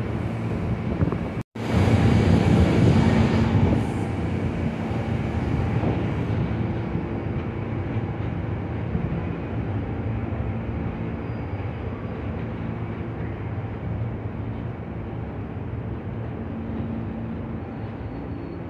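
New York City subway train running on elevated track, with wind on the microphone. The sound cuts out briefly about one and a half seconds in, is loudest just after, then slowly eases off.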